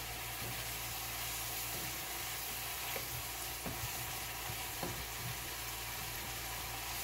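Masala sizzling as it fries in a nonstick wok over a gas flame. A spatula scrapes and taps against the pan a few times as it is stirred.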